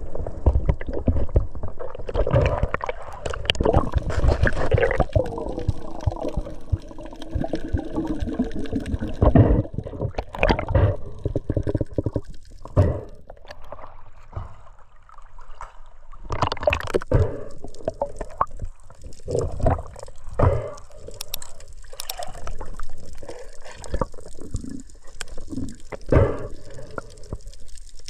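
Muffled water sloshing and bubbling, heard underwater, as a diver swims and dives, coming in uneven surges.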